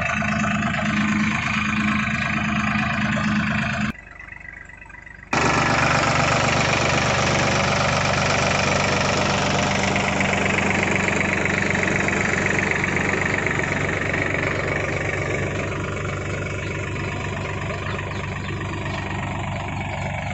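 Powertrac Euro 42 Plus tractor's diesel engine running steadily while pulling a potato planter through the field. The sound cuts out suddenly about four seconds in for about a second and a half, then comes back.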